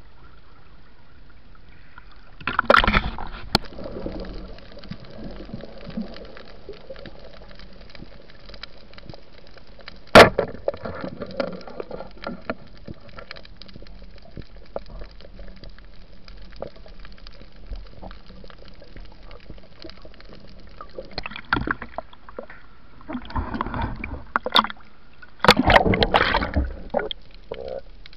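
Water sloshing and gurgling around an underwater camera, with a sharp knock about ten seconds in and a cluster of louder sloshing bursts near the end.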